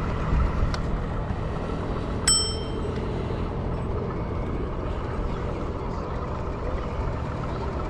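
Steady low rumble of an electric rental scooter riding along a smooth paved path, with one short metallic ding a little over two seconds in.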